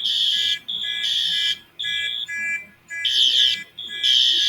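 School fire alarm system sounding its evacuation alarm: a loud, high-pitched tone pulsing on and off about once a second, with a weaker steady tone continuing between the pulses.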